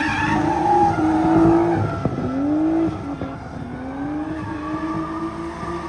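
Drift car's engine revving hard, its pitch climbing and falling back several times as the driver works the throttle, with tyres squealing under the slide.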